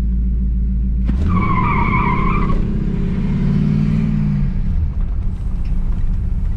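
Oldsmobile Toronado's V8 running on the move, its note picking up about a second in as it accelerates. A wavering high squeal sounds over it for about a second and a half.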